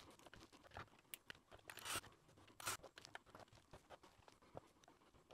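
Faint handling sounds from taking apart a camera lens: small clicks and scrapes of metal and plastic lens parts and a small screwdriver, with a brief scraping rustle about two seconds in.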